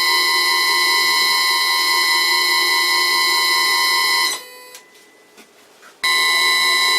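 1 hp three-phase motor on a vintage lathe, run from a variable frequency drive, giving a steady high-pitched whine made of several tones. The whine cuts off abruptly about four seconds in and starts again about two seconds later.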